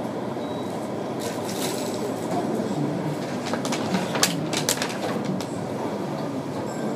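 Background murmur of many people talking in a crowded indoor space, with no clear words. A run of sharp clicks comes around four seconds in.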